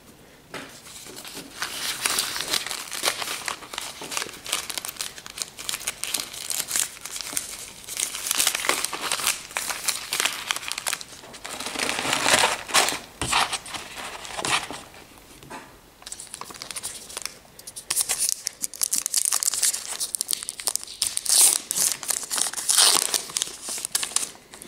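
Crinkling and tearing of a trading-card pack wrapper as it is ripped open and handled, coming in uneven stretches with brief lulls, loudest in the middle and near the end.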